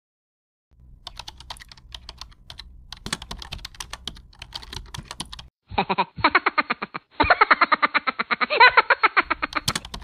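Keyboard typing sound effect: light, scattered key clicks over a low hum, then from about six seconds in a louder, rapid clatter of keystrokes with a brief break near seven seconds.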